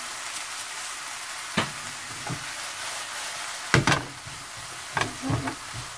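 Dried pollack strips and shishito peppers sizzling in a nonstick frying pan as they are stir-fried. The hiss is steady, broken by several knocks as the food is stirred, loudest a little past halfway.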